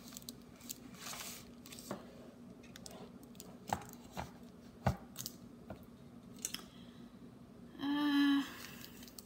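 Handling noises from unboxing an electric kettle: scattered light clicks and taps with a brief rustle about a second in, over a faint steady hum.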